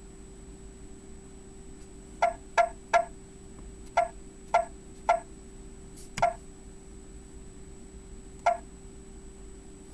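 Tesla Roadster dashboard touchscreen giving a short electronic beep with each button press, eight in all: a quick run of three about two seconds in, then single beeps spaced out to near the end. A faint steady hum runs underneath.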